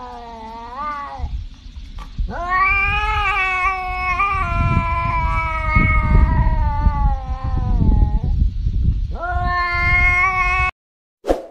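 Tabby cat yowling: long, drawn-out caterwauling calls, the longest lasting about six seconds. The last call cuts off abruptly near the end.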